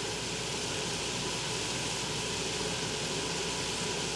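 Steady sizzle of chopped vegetables, garlic and diced andouille sausage frying in a stainless steel pot.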